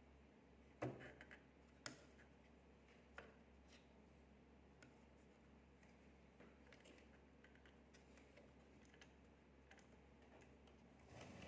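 Near silence: room tone with a low steady hum and a few faint, scattered clicks, the clearest about a second in and a small cluster near the end.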